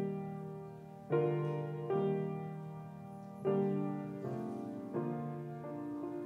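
Grand piano playing a slow prelude: chords struck roughly once a second and left to ring and fade.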